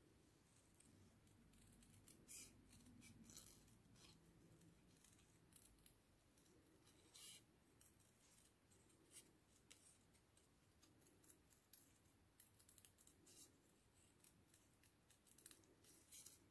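Small scissors snipping a strip of paper, faint, in short irregular cuts with pauses between them.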